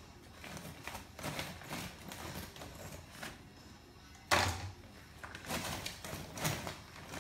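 Ice cubes lifted with metal tongs and dropped into a clear plastic cup. There is a sharp knock as a cube lands about four seconds in, with lighter clinks and clatter of ice before and after.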